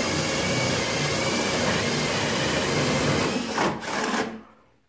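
Parkside PBSA 12 D3 12-volt cordless drill boring into a wooden beam with a spade bit, its motor whining steadily under load. Near the end the sound falters and the drill stops just after four seconds in.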